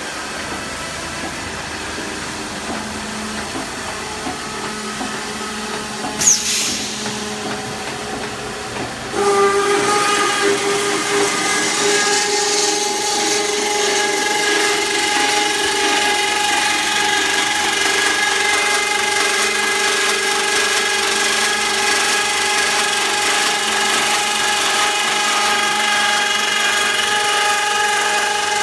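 Rack step-beam roll forming line running, with a brief sharp noise about six seconds in. About nine seconds in, the line's circular cutting saw starts cutting the formed steel rack tube under coolant: a louder, steady whine with several held tones.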